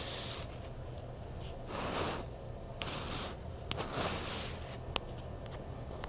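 Short bursts of static hiss from a handheld VHF FM radio, four in all, with sharp clicks between them, over a low steady hum.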